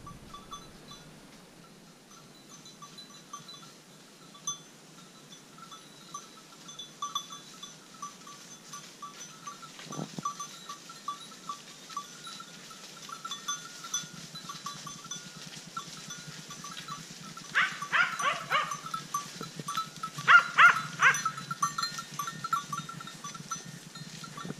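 Livestock bells on a flock of sheep ringing steadily as the flock moves, with two bouts of loud bleating in the last third.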